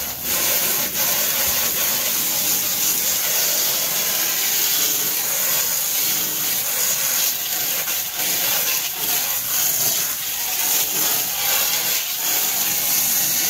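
Water spraying steadily from a Davis pet washer's hand sprayer onto a wet dog's coat, a constant hiss, on the rinse setting and washing the shampoo out.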